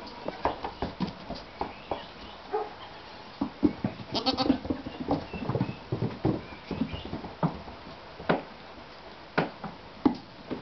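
Goats bleating in short calls, some of them high and thin. Many short taps of hooves on wooden floorboards run underneath.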